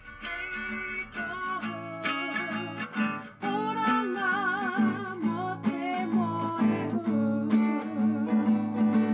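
Background music led by a plucked acoustic guitar, with a wavering melody line over it.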